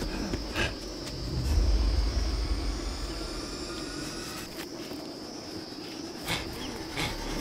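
Steady high-pitched insect chorus, with a low rumble in the first few seconds that dies away and a few scattered sharp knocks, two of them near the end.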